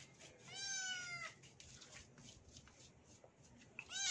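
Kitten meowing in distress while being bathed. One long meow about half a second in, sliding slightly down in pitch, and a second meow starting near the end.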